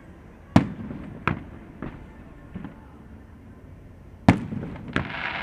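Aerial fireworks shells bursting in a string of sharp bangs, the two loudest about half a second in and near the end, each followed by a short echo.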